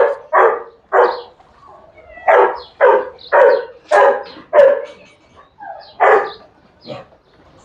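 A dog barking repeatedly: a run of three barks, then five, then one more near the end, with a short pause between the groups.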